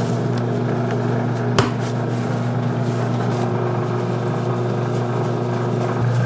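A steady low machine hum, with the light rustle and taps of flour being shaken through a round metal sieve into a basin. One sharp knock comes about a second and a half in.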